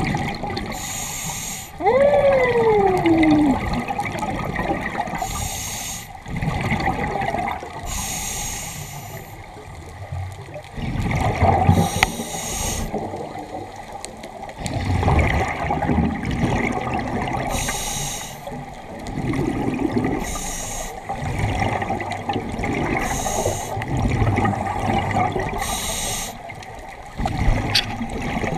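Underwater sound of a scuba diver breathing through a regulator: a hiss every few seconds and bubbling in between. About two seconds in a single whistle slides down in pitch.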